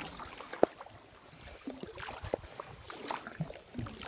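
Light water splashing and dripping around a kayak, with scattered small knocks and one sharper knock about half a second in.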